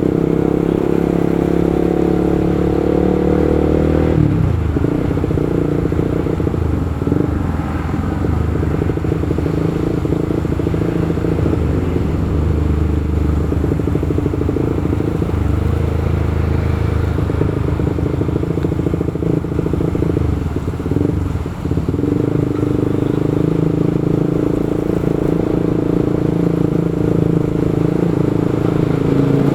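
Motorcycle engine running while riding in traffic, with road and wind noise. The engine note falls about four seconds in, then comes back as a steady note some twenty seconds later.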